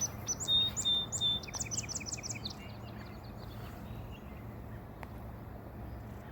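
A songbird singing a quick run of sharp, high, falling chirps that trails off into a softer trill after about three seconds, over a steady low background hum.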